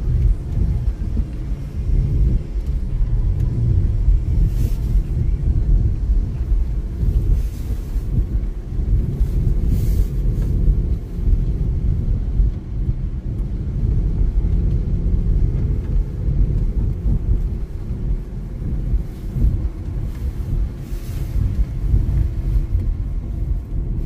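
Steady low rumble of a car's engine and tyres on a wet, slushy road, heard from inside the cabin while driving.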